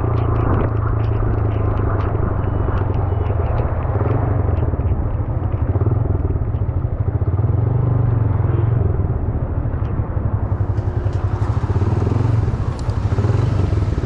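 Motorcycle engine running steadily while riding, a low pulsing drone picked up by the rider's camera. A hiss joins about ten seconds in.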